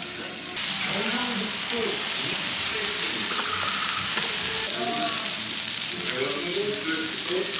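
Meat sizzling on a hot grill: a steady hiss that starts abruptly about half a second in and cuts off at the end, with faint voices underneath.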